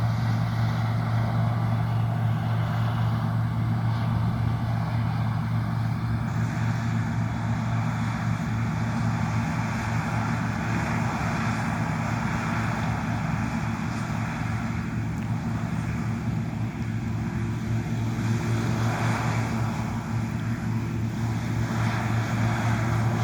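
John Deere T670i combine harvester running while cutting: a steady low engine drone with a constant rushing noise of the machinery above it.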